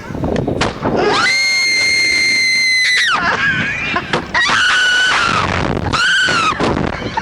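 Someone laughing uncontrollably: a long, high-pitched wheezing shriek held for about two seconds, then two shorter high squeals, with gasping breaths between.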